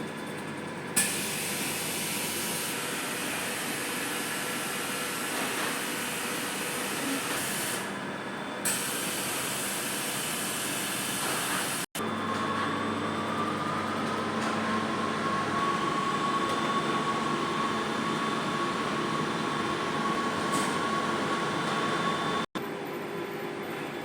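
Atexco Model X Plus digital textile printer running: a steady mechanical hum with a hiss that cuts in about a second in and briefly stops around eight seconds in. About halfway through, a motor whine rises, then holds steady.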